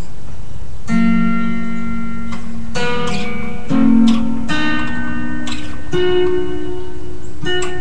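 Guitar music: chords that ring on, with a new chord every second or two.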